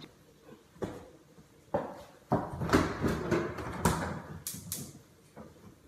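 A couple of sharp knocks, then about two and a half seconds of clattering and repeated thumps.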